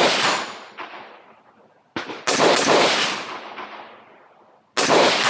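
Rifle shots fired in quick groups of two or three, with pauses of about two seconds between groups. Each shot trails off in a long echo.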